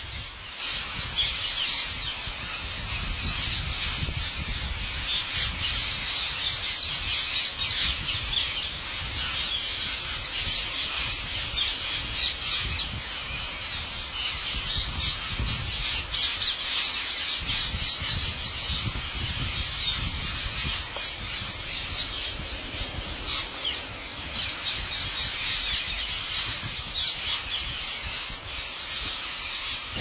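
A large flock of rose-ringed parakeets screeching, many shrill calls overlapping into a continuous din.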